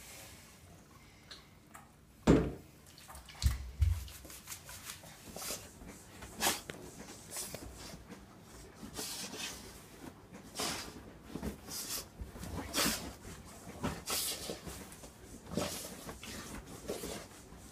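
A freshly bathed dog rubbing and rolling on a bed, the duvet and pillows rustling in repeated short bursts. A few heavy thumps come about two to four seconds in.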